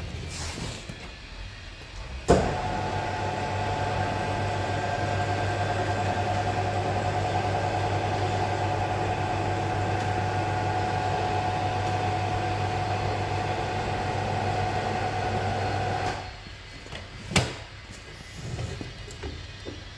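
A machine runs steadily for about fourteen seconds, with a low hum and a held tone. It starts and stops abruptly and is followed by a single sharp click.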